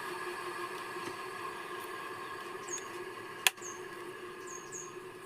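Ceiling fan motor running steadily after repair, an even whir with a light steady hum, spinning freely with no abnormal humming, which shows the dead-and-humming fault is cured. A single sharp click about three and a half seconds in.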